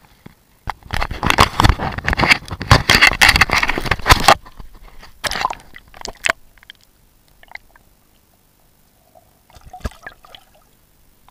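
Water splashing and sloshing close to the microphone as a caught sea bass is handled and released by hand at the water's edge. The splashing is heaviest for about three seconds near the start, followed by a few shorter splashes.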